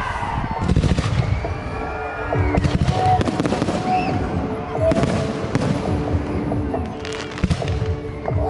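Aerial firework shells bursting overhead: a series of sharp booms and crackles, repeating every second or two.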